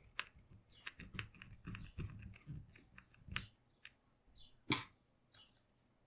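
Small Phillips screwdriver and the tiny M.2 retaining screw being fitted to hold down an NVMe SSD in a laptop: a run of faint clicks and light scrapes, with one sharper click about three-quarters of the way through.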